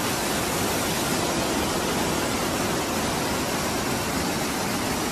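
Floodwater rushing in a torrent down a street, a loud steady rushing noise with no let-up.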